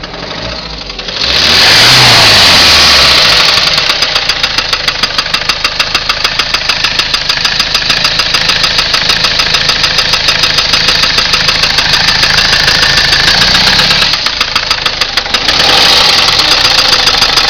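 Ford Transit diesel engine running with a rhythmic knocking clatter, the rattle the owner reports as a fault. It is revved up about a second in and held at higher revs, drops back briefly near the end, then is revved again.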